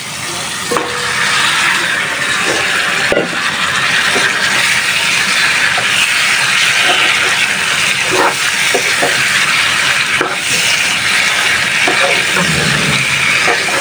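Pieces of stinging catfish sizzling steadily in a hot frying pan of sautéed tomatoes just after being added, with a few light knocks.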